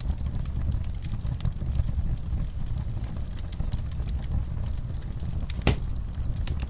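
Wood fire crackling in a fireplace: a steady low rumble of the flames under frequent, irregular small pops and snaps, with one louder pop near the end.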